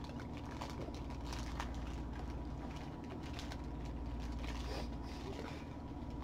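Faint rustling and light clicks of a small cardboard toy box being opened by hand, over a steady low electrical hum.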